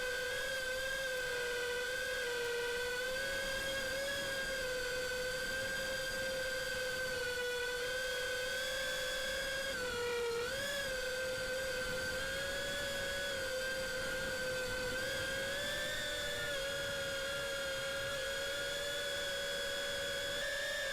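Brushless motors and propellers of a 5-inch FPV quadcopter whining at a steady high pitch. About halfway through the pitch dips briefly and wobbles as the throttle changes, then steadies again.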